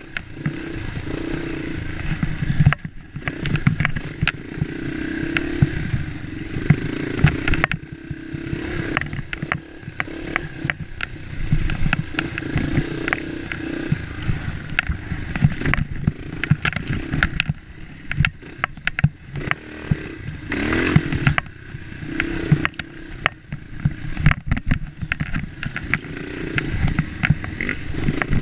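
Dirt bike engine ridden over a rough trail, its pitch rising and falling as the throttle opens and closes, with short throttle-offs and frequent clattering knocks from the bike over bumps.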